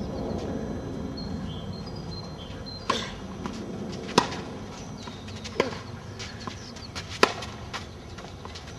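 Tennis ball struck back and forth with racquets in a rally: four sharp pops about a second and a half apart, with a few fainter ticks between them. Faint bird chirps are heard in the first two seconds.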